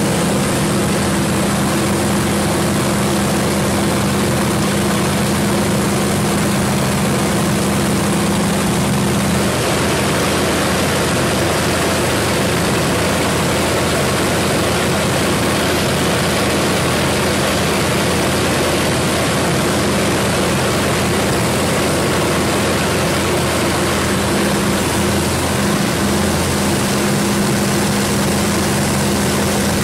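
WW2 piston-engine fighter's engine and propeller heard from inside the cockpit, a loud steady drone over rushing noise. Its low hum eases for a stretch in the middle and comes back strongly near the end.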